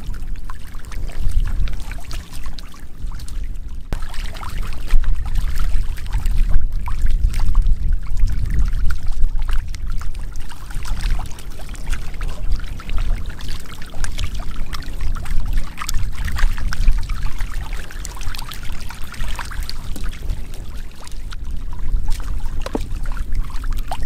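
Water splashing and trickling in a shallow muddy pool as stranded fish flap in it: many small, irregular splashes over a steady low rumble.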